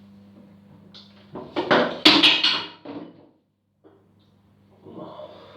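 Handling noise: a cluster of knocks and rustles lasting about a second and a half, starting about a second and a half in, over a steady low hum.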